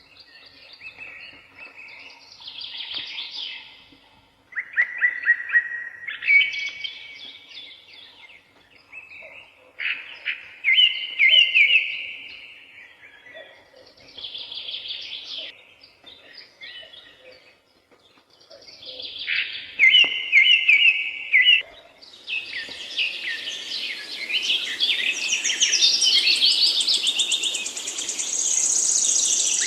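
Several woodland songbirds singing, with separate song phrases every few seconds. From about two-thirds of the way through, the song becomes a denser chorus of overlapping birds over a steady hiss.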